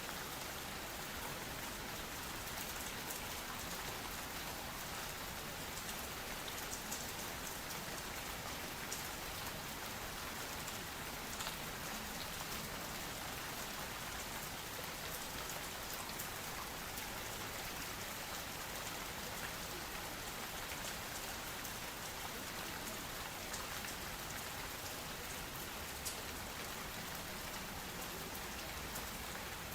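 Steady rain: an even hiss with scattered small drop ticks. It is the cover track of a subliminal audio, with affirmations layered beneath it.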